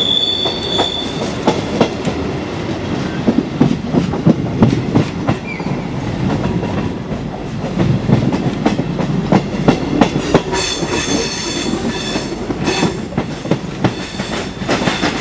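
A train rolling slowly over station tracks and switches, heard from on board: a steady rumble with irregular clacks as the wheels cross rail joints and points. A brief high squeal sounds at the start, and about two-thirds of the way through the wheels squeal shrilly on several pitches for a few seconds.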